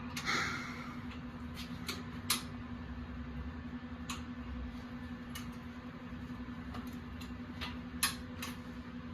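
A steady low hum with scattered, irregular sharp clicks, about ten in all, and a brief rustling burst just after the start.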